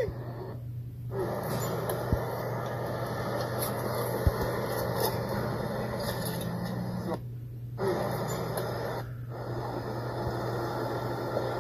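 Steady low hum under a bed of rustling background noise. The sound cuts out briefly three times, once about a second in and twice near the end.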